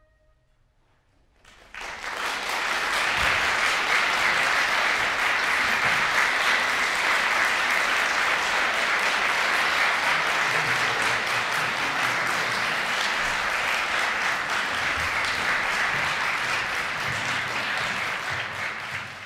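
The last flute note dies away, and after a short silence an audience breaks into applause about a second and a half in, clapping steadily in a reverberant concert hall until it fades at the very end.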